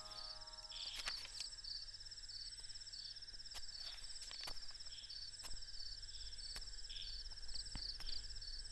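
Crickets chirping: a steady high pulsing trill with shorter repeated chirps over it, and a few faint clicks scattered through.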